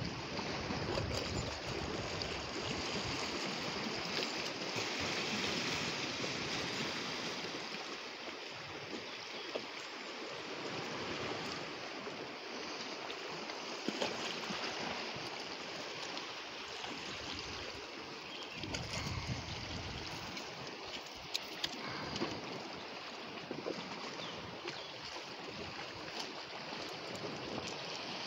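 Small sea waves lapping and washing against the rocks at the water's edge: a steady hiss of moving water, with a few sharp clicks.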